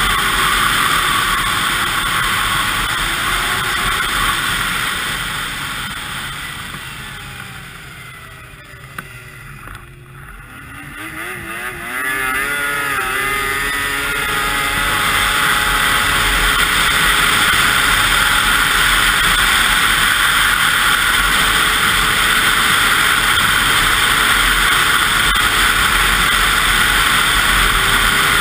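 2002 Yamaha SX Viper 700 snowmobile's three-cylinder two-stroke engine running at trail speed. About six seconds in the engine sound falls away as the throttle comes off, then around twelve seconds in it revs back up with a rising pitch and holds steady and loud at speed.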